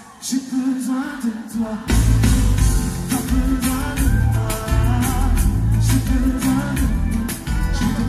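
Live pop band with a singer, heard from the crowd in a large concert hall. The first couple of seconds are voice and sustained chords only, then the bass and drums come in with the full band.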